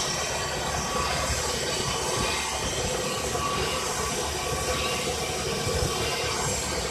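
Wasino CNC milling machine cutting a plastic-injection mould: a steady machining noise with faint steady tones and an uneven low rumble.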